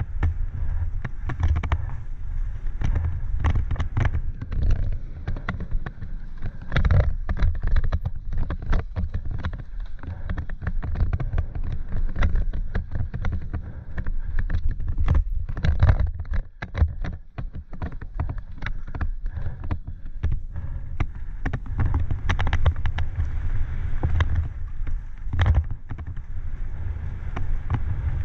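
Enduro mountain bike rattling and clattering down a rough dirt singletrack, with many sharp knocks, under a steady low rumble of wind buffeting on a helmet-mounted camera's microphone. It goes briefly quieter a little past the middle.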